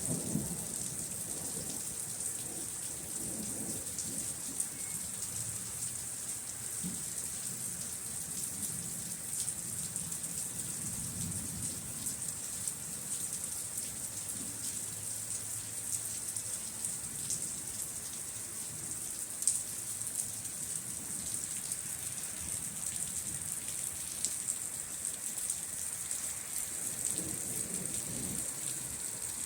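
Steady rain falling, a dense hiss of drops. A thunder rumble fades out in the first second or two, and fainter low rumbles come and go later.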